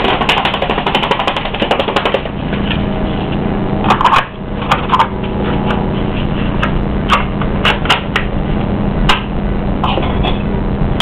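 Scattered clicks and taps of a plastic HO scale diesel locomotive shell and parts being handled and fitted together, over a steady hum.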